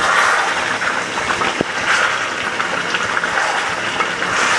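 Duck curry sizzling steadily in a pan as it is stirred with a wooden spatula. The meat is frying in the oil it has released, the sign that the braising (kosha) stage is done.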